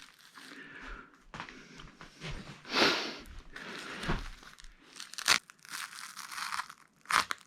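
Plastic packaging and bubble wrap crinkling and tearing as replacement LED backlight strips are unwrapped, with a few sharp crackles, the sharpest about five seconds in and near the end.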